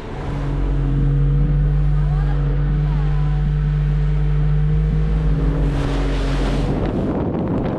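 Motorboat engine running at a steady cruising speed, a constant low drone. About six seconds in, a rush of noise rises and the engine note fades under it.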